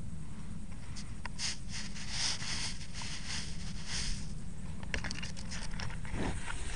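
Sand and grit scraping and rustling against a small homemade Lego camera rig as it is jostled, in several hissing sweeps through the first four seconds, then a few sharp clicks about five seconds in, over a steady low rumble.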